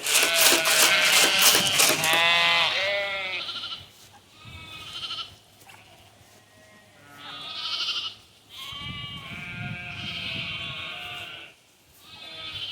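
A flock of Katahdin hair sheep bleating, with several loud calls overlapping in the first few seconds, then fainter scattered bleats.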